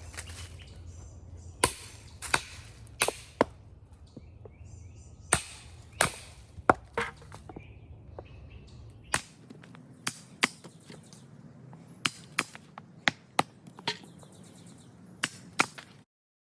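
Hatchet blows chopping and splitting red oak: a string of sharp, separate whacks at irregular spacing, sometimes several close together. The sound cuts off abruptly near the end.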